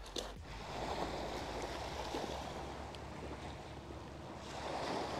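Small waves washing onto a pebble beach, swelling about a second in and again near the end.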